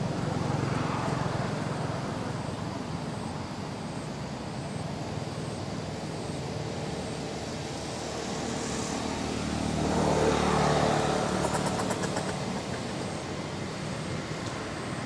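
Background road traffic, with one motor vehicle passing and growing louder about ten seconds in before fading again.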